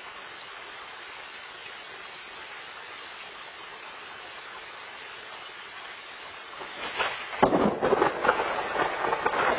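Steady rain falling, then about seven seconds in a loud, crackling thunderclap that runs on into a rumble for the last few seconds.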